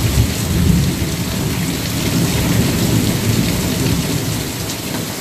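Heavy rain falling steadily, with a deep low rumble underneath.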